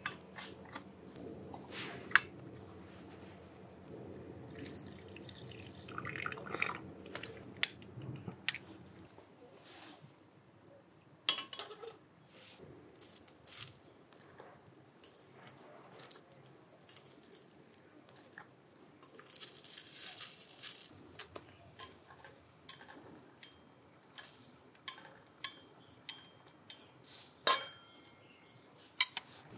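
Light clinks and taps of camp cooking gear being handled: a beer-can alcohol stove set down and chopsticks working on a bare iron griddle plate. A couple of seconds of hissing come about two-thirds of the way through.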